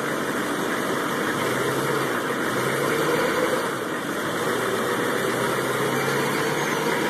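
Vehicle engine running steadily, heard up close at its exhaust pipe.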